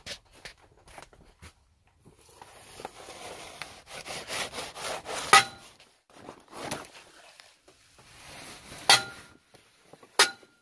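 Scraping and handling noise on rusty metal, broken by three sharp metallic knocks, the last two ringing briefly, as tools and parts are worked around a truck winch.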